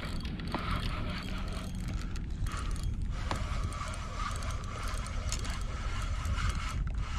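Spinning reel being cranked steadily, its gears whirring with fine ticking, as a hooked fish is reeled up under load.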